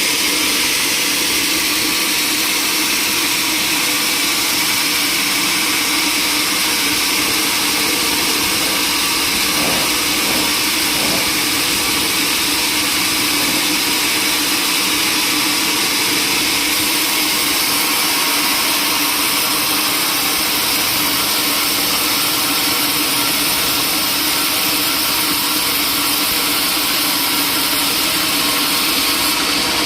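Sawmill machinery running steadily: a continuous machine drone with a hissing, whining saw noise over it and no breaks.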